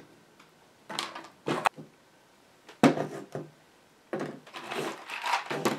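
Small amplifier parts knocking as they are set down on a worktable: a few separate knocks, the loudest about three seconds in, then a longer stretch of sliding and clattering near the end.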